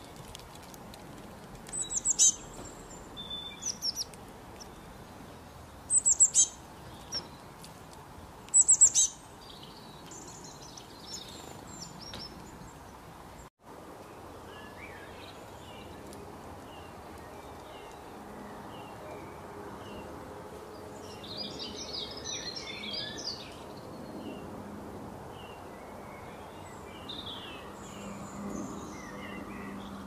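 Wild birds calling: three loud, sharp, high-pitched calls, each a quick cluster of notes, in the first third, then softer scattered chirps with a busier flurry of twittering a little past the middle.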